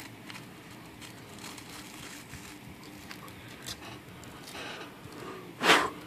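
Faint scratching of an abrasive sanding stick rubbed against a small plastic slide-switch part, with a few light ticks. A short, louder rush of noise comes near the end.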